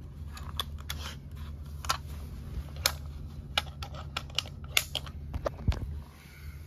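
Handling noise from a phone being fumbled against clothing and a leg: irregular clicks and knocks, a dozen or so, over a steady low hum.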